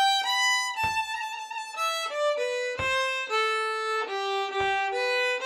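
Solo fiddle bowing a phrase of a traditional Polish mazurek: the second variant of the tune's first part, whose descent falls to G rather than F-sharp. A low thump marks the beat about every two seconds.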